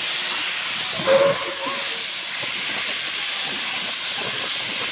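Steam locomotive hauling a passenger train, with a steady hiss of steam blowing from its open cylinder drain cocks. A short, louder tone cuts in about a second in.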